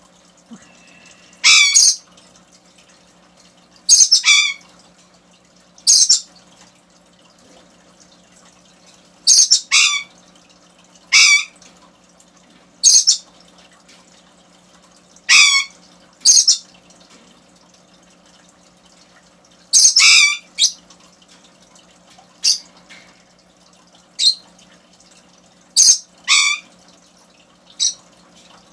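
Blue-and-gold macaw giving short, loud squawks, about one every one to two seconds, a few of them in quick pairs.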